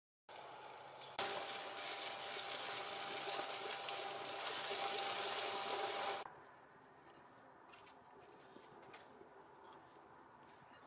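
Water running hard from a tap, starting abruptly about a second in and shut off after about five seconds, with a faint steady tone in the flow.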